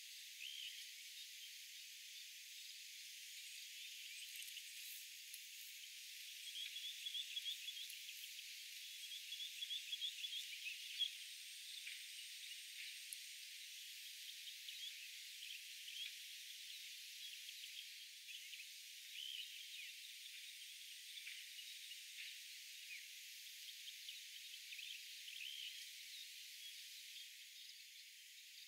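Faint evening chorus of insects and frogs: scattered chirps and trills over a steady hiss, with a denser run of trilling calls from about seven to eleven seconds in.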